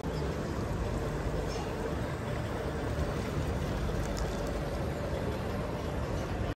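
Steady low rumble of an abra, a traditional wooden water taxi, moving across the water, with a faint steady hum and a background murmur of voices.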